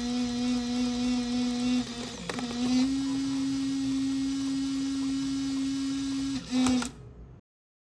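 A steady, pitched hum that dips and settles slightly higher about two seconds in, then cuts off suddenly near the end.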